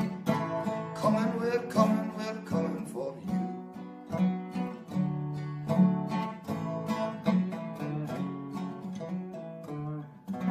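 Acoustic guitar strummed in a steady rhythm, chords ringing: the instrumental outro after the last sung line of a folk song.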